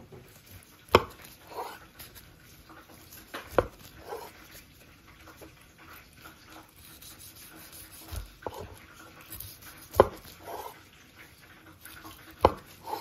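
Sharp knocks and taps on a wooden cutting board while a sushi roll is assembled: four louder knocks a few seconds apart, with softer handling sounds between.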